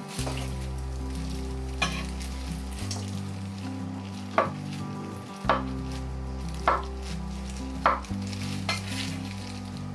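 Kitchen knife cutting through acorn jelly and tapping down on a wooden cutting board, about six sharp knocks spread a second or so apart, the loudest about four seconds in.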